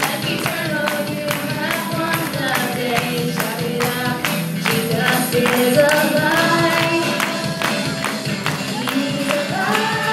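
Live worship band playing an upbeat song: women singing the melody over a drum kit keeping a steady beat.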